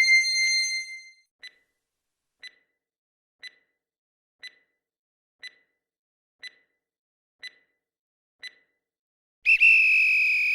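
Quiz countdown-timer sound effect: a chime ringing out, then eight short ticks one second apart, then a steady electronic alarm tone of about a second signalling that time is up.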